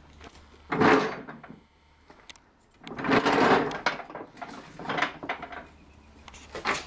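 Metal parts of a lawn tractor's mower deck and mounting clattering and scraping as the deck is worked into place and its mounting pins are fitted, in several separate bursts, the longest about three seconds in.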